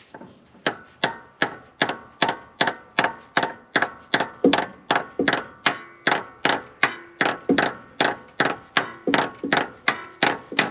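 Small hammer tapping steadily on a stuck-open intake valve of a Ford flathead V8, about three strikes a second, each with a short metallic ring, to knock the seized valve back down onto its seat.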